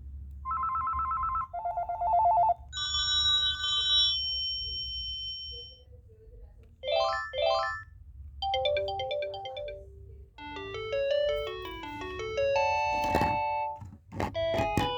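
Panasonic KX-T telephone stepping through its electronic ringtones one after another. First come short warbling trills at a few different pitches, then two quick rising chirps about seven seconds in, then fast beeping melodies of many short notes.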